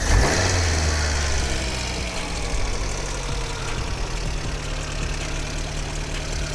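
Motorcycle engine catching just after cranking, running stronger for the first second or so, then settling into a steady idle. It is left idling after a loose radiator hose fitting was refastened, so the cooling system builds pressure to show whether it still leaks.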